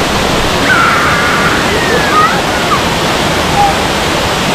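Waterfall: a loud, steady roar of falling water.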